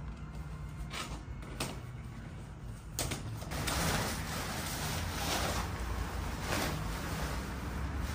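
Tent rainfly fabric rustling and swishing as it is shaken out and pulled over a dome tent, in repeated swells from about three seconds in. Before that there are a few light clicks of handling.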